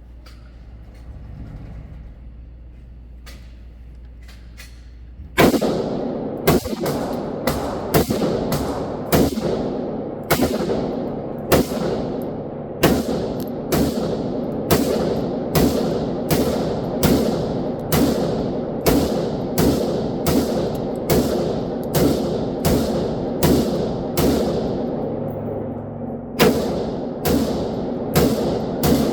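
Glock 19 9mm pistol fired semi-automatically through a 50-round magazine, starting about five seconds in with a steady string of shots at roughly two a second and no pauses for jams.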